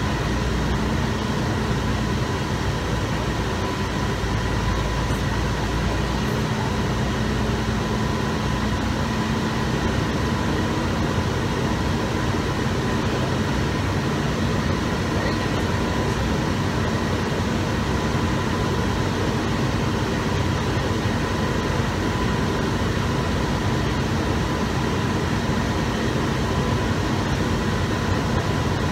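International semi tractor's diesel engine running as a steady drone inside the cab while the truck drives slowly, with a thin steady whine above it.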